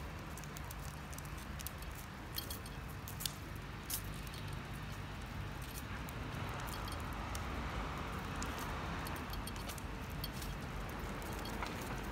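Stroller being pushed over asphalt: the wheels rumble steadily, with many small clicks and rattles from the frame.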